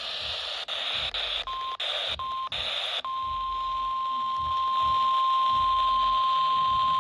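Weather radio hissing with static that cuts out for a moment several times, then the NOAA Weather Radio 1050 Hz warning alarm tone: two short beeps about a second and a half in, then one steady tone from about three seconds in. The tone signals that a new warning broadcast is about to follow.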